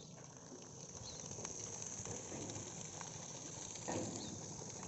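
Open-air background at a reservoir: a steady high hiss with a few short bird chirps, and a brief thump about four seconds in.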